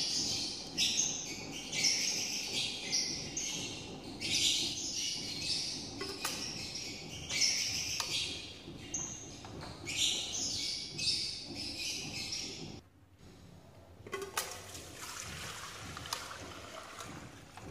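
Small birds chirping busily and continuously. About thirteen seconds in the chirping stops suddenly, and then used frying oil is poured from a wok into an aluminium pot with a soft trickling.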